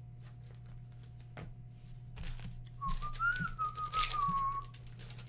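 A person whistling a short wavering note, rising slightly and then falling, for about two seconds in the second half, over faint clicks and rustles of trading cards being handled.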